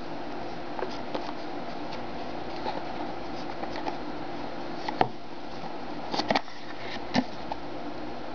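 Pen gift box being handled and opened by hand: the sleeve slid off and the lid lifted. Scattered light clicks and taps sound throughout, the sharpest about five seconds in and a few more around six to seven seconds, over a steady background hum.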